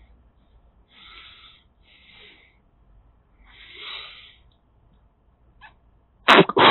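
A person blowing into the end of a removed rubber brake hose. Three soft puffs of breath come in the first four seconds, then a loud, forceful blow near the end. The hose is clogged, and the air does not get through.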